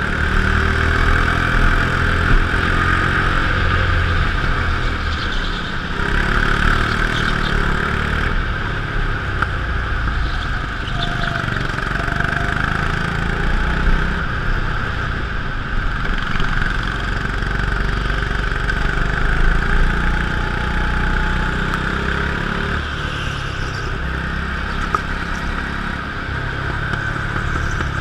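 Petrol go-kart engine running continuously while racing round a track, heard close up from on board, its note rising and dipping slightly through the laps.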